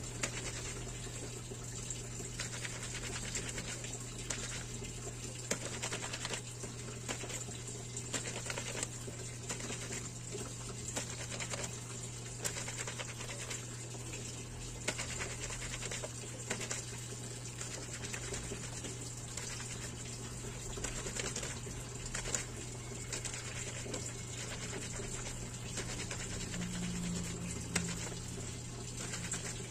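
Hand-scrubbing a soapy wet cloth diaper with bar soap: irregular strokes of wet fabric rubbing and squelching, over a steady low hum and water from the tap.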